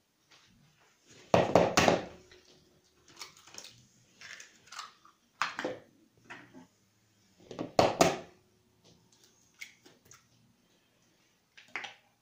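Eggs being cracked against a bowl: sharp knocks with the shell breaking, loudest about a second and a half in and again about eight seconds in, with lighter clinks and handling sounds between.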